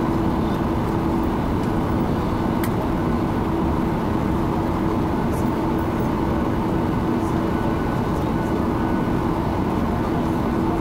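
Cabin noise inside a Boeing 737-800 with its CFM56 engines running steadily at low thrust on the runway: a steady low hum with a fainter high whine over even rushing noise.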